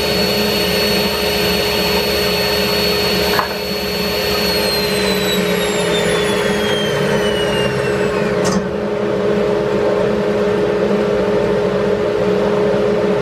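Table saw switched off with a click about three and a half seconds in; its high whine then falls steadily as the blade spins down, stopping about eight and a half seconds in. A loud steady rushing noise runs under it throughout.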